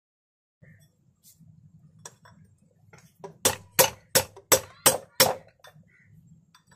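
A few light taps, then six sharp metallic strikes about three a second: a hammer on a steel rod driving a worn wheel bearing out of a Honda Shine's alloy wheel hub.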